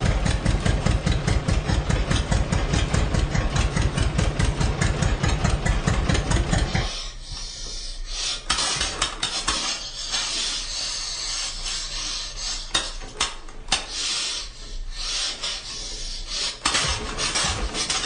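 1959 tractor engine running with a fast low chug, which drops away about seven seconds in. It gives way to an uneven rasping sound with a few sharp clicks, then the engine picks back up with the same chug near the end.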